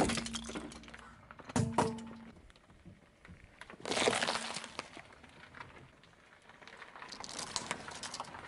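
A car tyre crushing a series of objects on asphalt. Sharp cracks of hard plastic breaking come at the start and again about a second and a half in, a bell pepper is squashed under the tyre about four seconds in, and plastic chain links crackle near the end.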